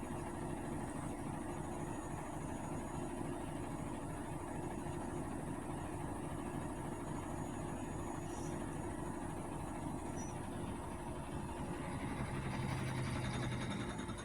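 Hotpoint Aquarius washing machine running: a steady mechanical hum with a fast, even flutter. Near the end a deeper hum comes in and it grows slightly louder.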